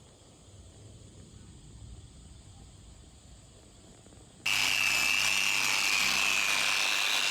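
Faint background for about four and a half seconds, then an electric machine polisher cuts in abruptly, running steadily with a high whine as it polishes car paint.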